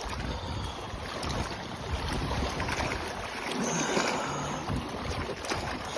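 Wind buffeting the microphone over lapping lake water, a steady rushing noise with gusty low rumble.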